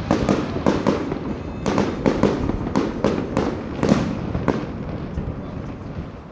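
Fireworks going off in a rapid, irregular series of sharp pops and bangs, which thin out and stop after about four and a half seconds.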